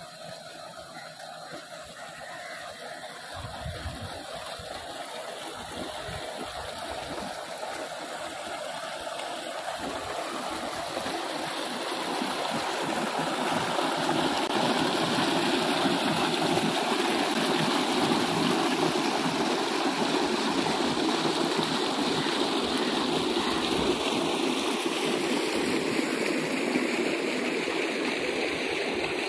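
Pumped irrigation water gushing from a steel outlet pipe into a concrete tank: a steady splashing rush that grows louder through the first half and is loudest about halfway through.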